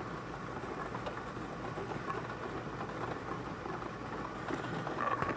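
Air-mix bingo ball blower running steadily, its balls rattling and clicking as they tumble in the air stream.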